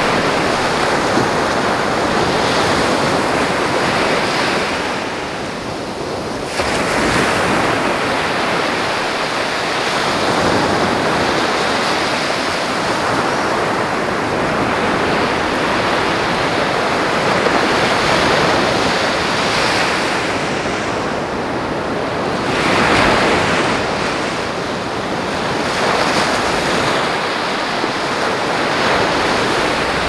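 Ocean waves breaking and washing up the shore, a continuous rushing that swells and ebbs. The wash eases off about five seconds in, comes back suddenly a second or so later, and surges again past the twenty-second mark.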